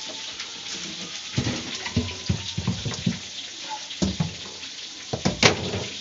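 Water running from a hose into an ice-packed freezer compartment to melt the frost, with a steady gush and several sharp knocks and clatters scattered through, the loudest near the end.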